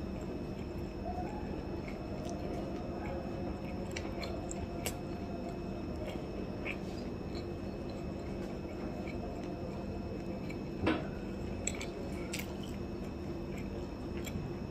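A person chewing mouthfuls of boiled corn kernels, with small scattered wet mouth clicks, one a little louder just before 11 seconds in, over a steady low background hum.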